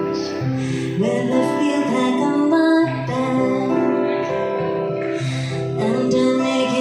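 Female vocals singing a slow song over sustained instrumental accompaniment, the voice coming in about a second in.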